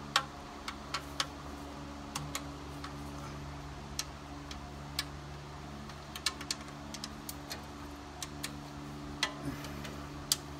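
Click-type torque wrench giving a string of short, sharp clicks at irregular spacing as transmission pan bolts are re-checked at 65 inch-pounds; each click is the wrench releasing at its set torque, a sign the bolt is already tight. A steady low hum runs underneath.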